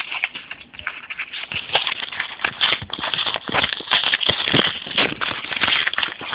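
Crinkling and rustling of a padded mailer and its bubble-wrap packaging being handled close up: a dense, irregular run of crackles and clicks.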